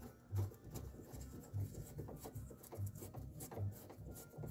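Hand-turned socket driver running a screw into the steel door inner panel of a Ford truck at the window motor mount: faint scraping and rubbing with small clicks as the handle is turned, and soft low thumps about once a second.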